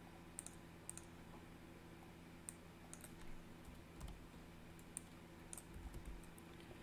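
Faint, irregular clicking of a computer keyboard and mouse, about one to two clicks a second, over a steady low hum.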